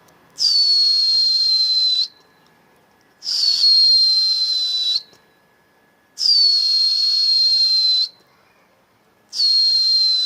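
A shrill whistle blown in four long, evenly spaced blasts about three seconds apart. Each blast is a steady high tone over breathy hiss, dipping slightly in pitch at its start and then holding.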